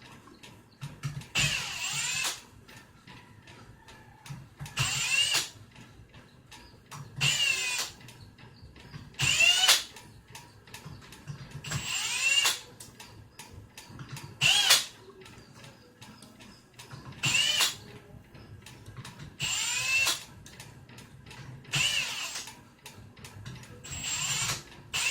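Cordless power drill/driver run in about ten short bursts, one every two to three seconds, each a quick rising whine as the motor spins up. It is undoing the nuts that hold the bus bars of a lithium battery pack.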